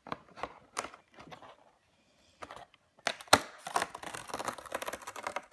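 Cardboard advent calendar door being torn open along its perforations: a few scattered clicks, a pause, then about three seconds in a sharp crack followed by dense crackling of cardboard and the plastic tray inside.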